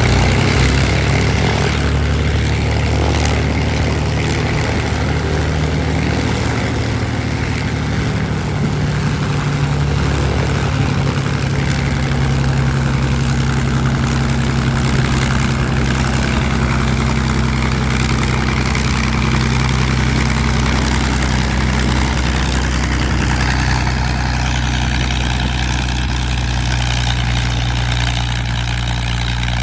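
P-51D Mustang's Packard Merlin V-12 engine idling steadily, its propeller turning, with a slight drop in level near the end.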